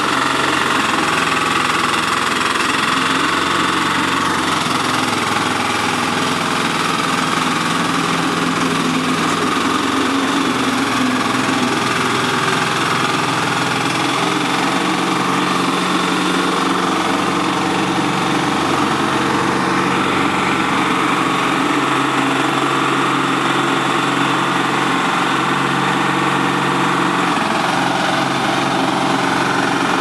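The 13 hp diesel engine of a mini crawler air-blast sprayer running steadily under load, with the strong rush of its blower fan driving out the spray mist. The engine's pitch shifts slightly now and then.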